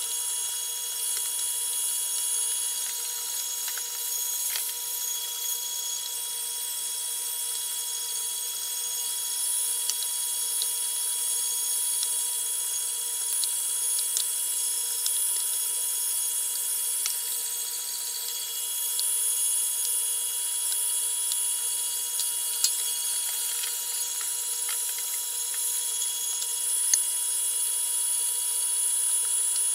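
Cabela's Commercial-Grade 1 HP Carnivore electric meat grinder running steadily with a constant whine, grinding a venison-and-pork blend through the coarse plate.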